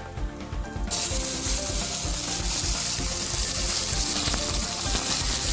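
Ground spice and horse gram paste dropped into hot coconut oil, sizzling and crackling sharply from about a second in as it starts to fry, over background music with a steady beat.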